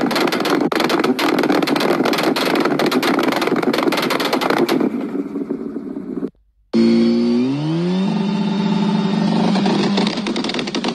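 Car exhaust crackling and popping rapidly while the engine revs, the pops of unburnt fuel igniting in the exhaust that throw flames. It cuts off suddenly, and after a brief gap another car engine revs up, rising in pitch for about a second before holding a steady high rev.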